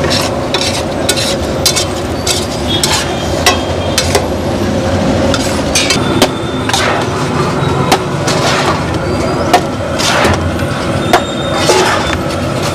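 Steel compartment plates scraping and clanking against a large flat tawa griddle as a heap of pulao rice is scooped up, tossed and dropped back down: irregular metallic knocks and clinks, several a second at times, over a steady background noise.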